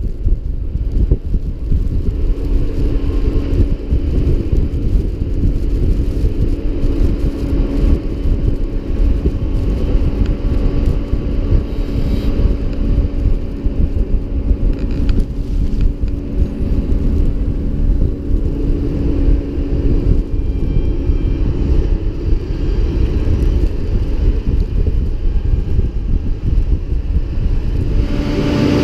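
Tractor engine running steadily with a constant hum, mixed with wind buffeting the microphone.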